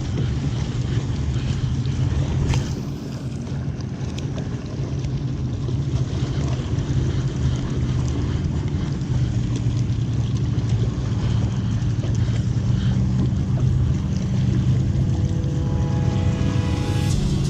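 Motorboat engine droning steadily at a constant pitch. Music comes in near the end.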